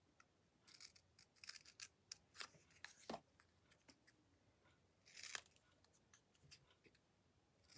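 Small craft scissors snipping through stamped paper strips: a handful of short, quiet snips at irregular intervals.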